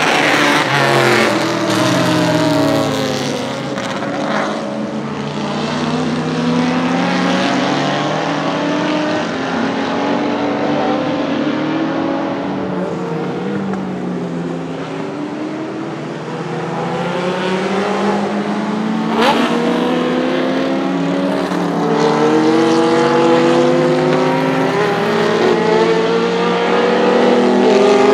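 Historic racing car engines passing one after another on a wet track, each revving up and dropping back through gear changes, over a steady hiss of tyres on wet tarmac. A single sharp crack about two-thirds through.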